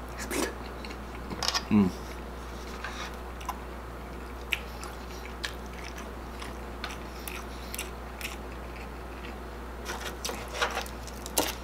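A man chewing a mouthful of soft mung bean stew close to the microphone, with scattered wet mouth clicks and smacks. There is a brief hum of voice about two seconds in, and a quicker run of clicks near the end.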